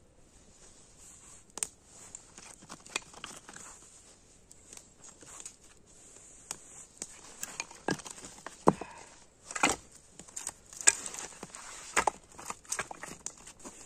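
Split kindling sticks knocking and clacking against each other as they are stacked onto a small campfire, in irregular sharp knocks that come thicker and louder in the second half.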